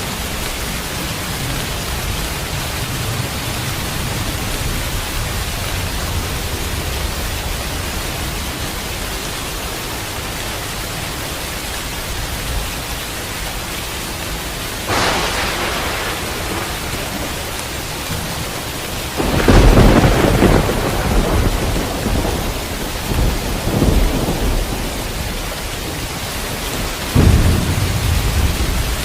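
Steady rain with thunder: a sharp crack about halfway through, then a loud rolling rumble a few seconds later that swells several times, and another sudden clap near the end.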